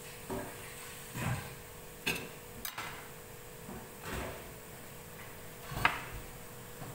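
Scattered knocks and clinks of a kitchen knife against a ceramic plate as slices of processed meat are cut and pulled apart, about six in all, the sharpest near the end. A faint steady hum runs underneath.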